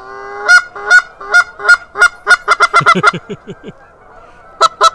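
Goose honks: a quick series of short honks on one pitch that speeds up, falls quiet for about a second and a half, then starts again as a fast run near the end.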